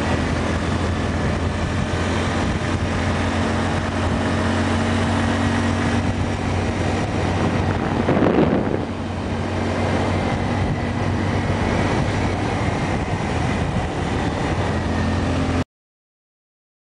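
Motorcycle engine running at a steady pitch, with a brief louder swell about halfway through. The sound cuts off suddenly near the end.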